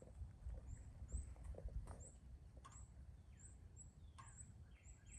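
Faint outdoor birdsong: a short high chirp repeating about twice a second, with a few lower calls mixed in, over a low rumble.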